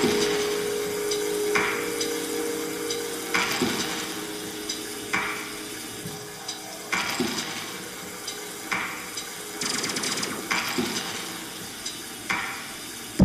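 Quiet opening of the dance music: a sustained low drone slowly fading, with a noisy rattling swell about every second and three-quarters.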